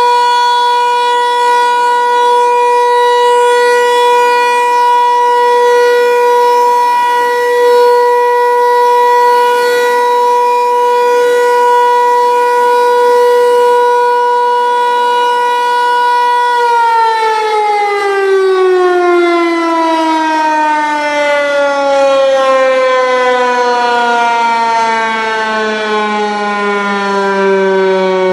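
Federal Signal 508 outdoor tornado warning siren sounding a steady tone on a test. About 17 seconds in it winds down, its pitch falling smoothly and slowly.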